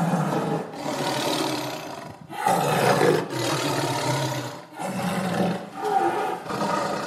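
An angry tiger roaring: a run of long, rough roars, each a second or two long with brief breaks between them.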